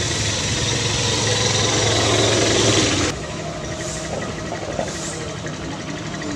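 A motor engine running steadily with a low hum and a loud hiss, which cuts off abruptly about three seconds in, leaving quieter outdoor background with a few faint high chirps.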